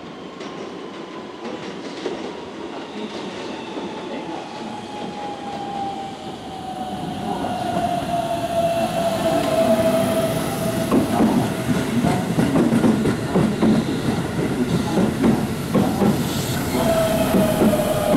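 Keihan 3000-series electric train pulling into a station: its traction-motor whine falls steadily in pitch as it slows, then the wheels knock over rail joints as the cars roll past, louder from about halfway on.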